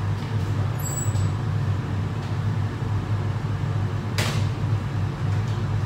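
Steady low hum of kitchen ventilation, with one sharp knock about four seconds in.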